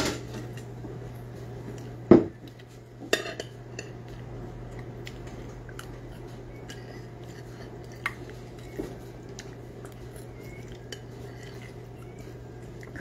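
Cutlery clinking against plates and bowls as people eat: scattered light clinks, with a sharper knock about two seconds in and another a second later.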